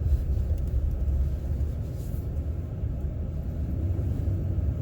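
Pickup truck driving in four-wheel drive high through deep unplowed snow: a steady low rumble of engine and tyres.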